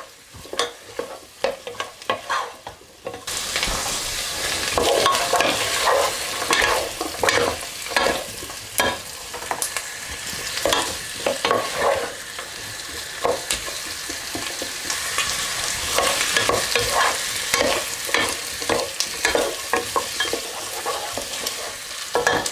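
Diced potatoes, carrots and onion frying in butter and oil in a saucepan, sizzling steadily, while a wooden spoon stirs them with repeated scrapes and knocks against the pan. The sizzle comes in strongly about three seconds in.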